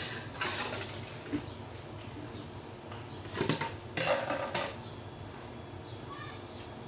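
Plastic wash basins knocked and scraped on a tiled floor as they are picked up and handled: a few short clatters about half a second in, then another cluster around three and a half to four and a half seconds.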